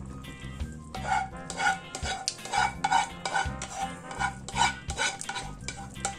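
Spoon scraping and knocking against a frying pan in quick repeated strokes, about two to three a second, as meatballs in tomato sauce are scraped out of the pan into the soup pot.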